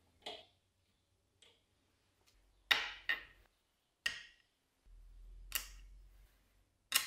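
Small steel hardware, a bolt, nut and washers, set down piece by piece on a hard tabletop: about seven separate sharp metallic clicks, the loudest near the middle and at the end.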